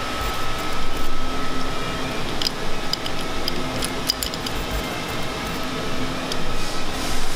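Machine-shop ambience: a steady hum of running equipment with a constant high whine, and a scattering of light metallic clicks and ticks in the middle.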